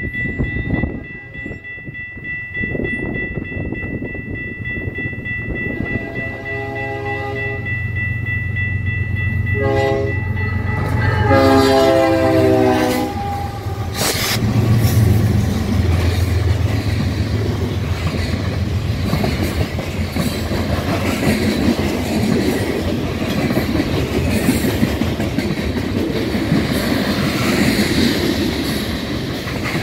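A BNSF loaded coal train, led by a GE ES44AC locomotive, approaches and sounds its horn in three blasts: a long one, a short one and a long one. The diesel engines' deep rumble grows as the locomotives pass, about fourteen seconds in. After that the loaded coal hoppers roll by with a steady clickety-clack of wheels on the rails. A steady high tone sounds until the horn finishes.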